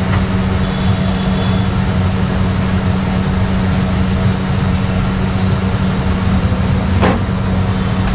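Steady machine hum with a constant low drone, and a single sharp click near the end.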